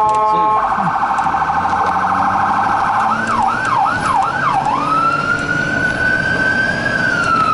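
Rescue truck's electronic siren heard from inside the cab, switching through its tones: a brief steady horn blast at the start, a rapid warble for about two seconds, three or four slower yelps, then a long wail that rises and begins to fall near the end.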